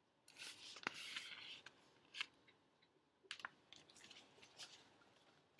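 Faint paper rustle as a picture book's page is handled and turned over, lasting about a second and a half, followed by a few small clicks and taps.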